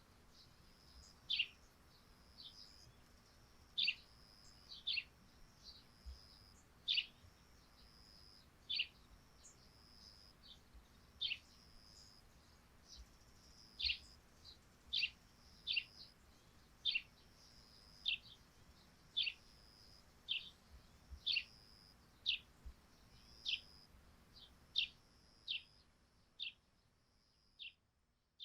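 Eurasian tree sparrows chirping: short, sharp chirps that drop in pitch, about one a second, over a faint steady hiss that fades out near the end.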